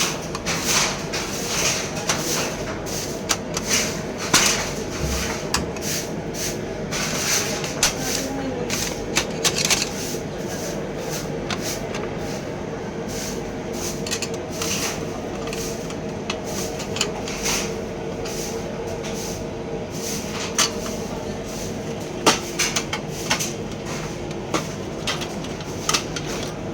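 Plastic clicks, snaps and knocks from an HP LaserJet printer's casing and internal latches being worked loose during disassembly, irregular throughout, over a steady low hum.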